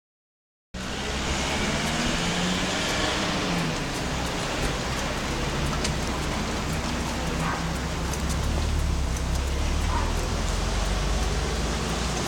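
Steady outdoor street ambience starting just under a second in: an even hiss over a low rumble, with a few faint clicks.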